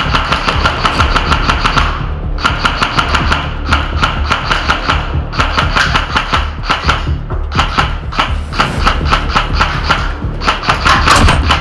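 Airsoft guns firing on full auto, burst after burst of rapid sharp clicks, each a second or two long with short pauses between, over background music.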